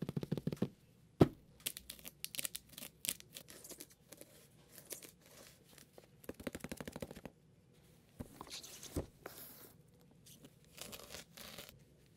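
Plastic shrink wrap on a smartphone box crinkling and tearing as gloved hands handle it, in short rustling bursts. There is a sharp tap about a second in, and two dull knocks near the two-thirds mark.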